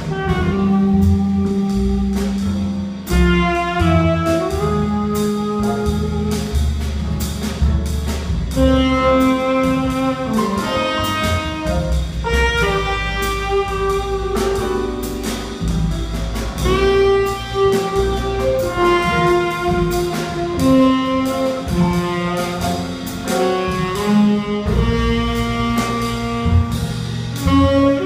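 Small jazz band playing live: a saxophone carries the melody in held notes over upright bass and drum kit with cymbals.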